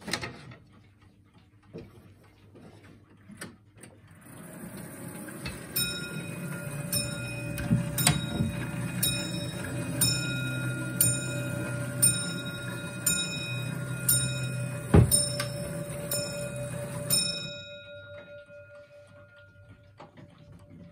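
Longcase clock striking the hour: a whirring strike train, then a steady series of ringing bell blows roughly a second apart, after a few seconds of faint ticking. One low thump sounds partway through the strikes.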